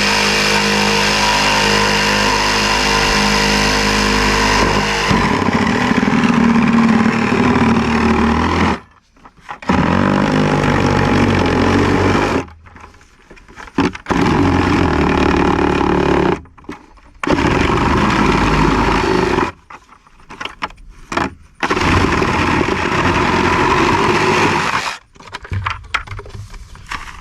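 A handheld power tool cutting through a plastic 5-gallon bucket to take its bottom off. It runs with a steady whine for about five seconds, then turns rougher as it bites into the plastic, and goes on in several shorter runs with brief pauses between them.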